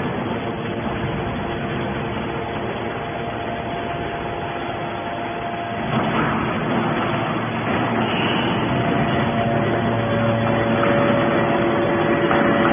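Hydraulic scrap metal baler running: a steady mechanical din with a few held whining tones. About halfway through it gets a little louder and the tones change.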